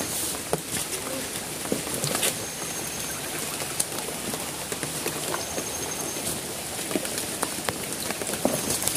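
Steady rain falling on forest leaves, an even hiss dotted with scattered drop ticks, together with rustling and small crackles of footsteps through wet leaf litter and undergrowth.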